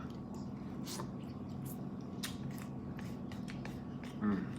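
A person chewing food close to the microphone: scattered wet mouth clicks over a steady low hum, with a short hummed vocal sound near the end.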